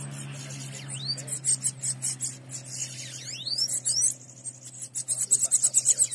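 Small songbirds calling: repeated short rising whistles, then bursts of fast, high chittering in the second half.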